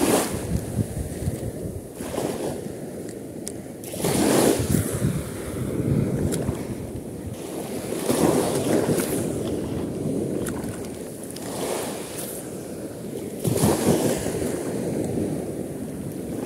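Small waves breaking and washing up a sandy shore, the wash swelling and fading every two seconds or so, with wind buffeting the microphone.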